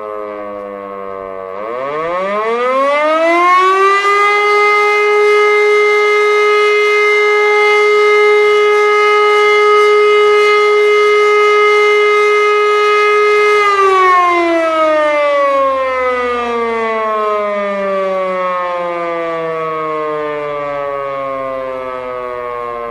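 Electromechanical civil-defence siren, presumably a refurbished former Helin E57, running the wrong way round, apparently because it was wired wrongly when it was installed. At first it is still winding down. About a second and a half in it winds up quickly to a steady howl, holds it for about ten seconds, then winds down slowly, its pitch sinking to the end.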